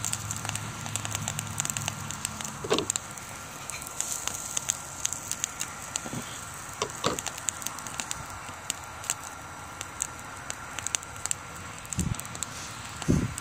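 Wood fire crackling and popping in a BioLite CampStove, with a steady faint high whine from the stove's fan. A few dull low thuds come near the end.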